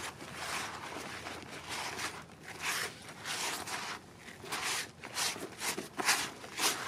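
Hands kneading damp homemade groundbait of breadcrumbs, oat flakes, corn and raisins: a crunchy rustling squish about every half second to a second.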